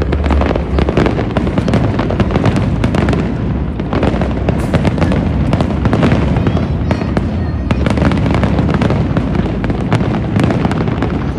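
Fireworks display: a rapid, dense barrage of aerial shells bursting, bangs and crackling overlapping without a break.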